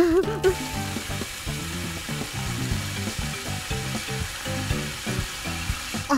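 Fire crackling and hissing steadily, a cartoon sound effect, over quiet background music.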